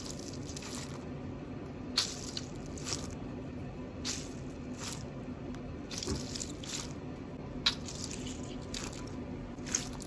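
Mesh stress ball filled with gel water beads squeezed by hand, giving short wet squishing and crackling sounds about every one to two seconds.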